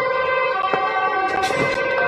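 Police vehicle siren sounding steadily, with a few sharp knocks from thrown stones landing and shouting voices coming in near the end.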